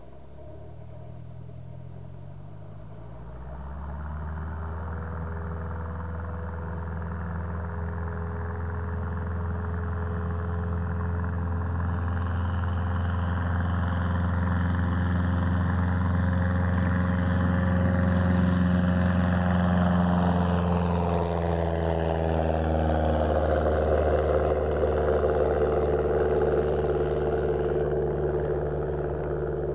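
Cessna 172's single piston engine and propeller going to full takeoff power about three seconds in, growing steadily louder as the plane rolls down the runway toward the microphone. After the loudest point its pitch drops as the plane passes and climbs away after lift-off.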